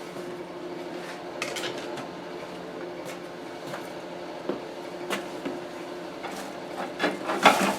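Loose machine parts and packaging being handled and set down: scattered small knocks and rustles, with a louder clatter near the end, over a steady low hum.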